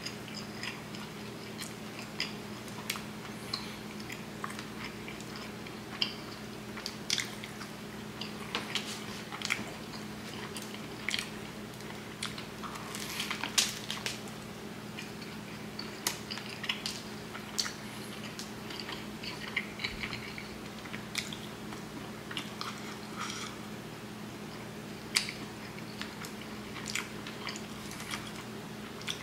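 Biting into and chewing a Subway Philly cheesesteak sandwich close to the microphone: irregular wet mouth clicks and small crunches, with a cluster about halfway through, over a steady low hum.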